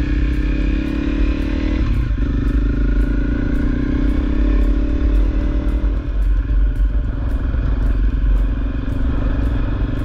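Honda CRF250L's single-cylinder four-stroke engine running as the motorcycle is ridden, its note dipping briefly about two seconds in.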